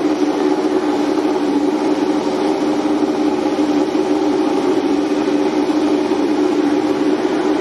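A MotoGP racing motorcycle engine running at steady, even revs with a strong unchanging drone.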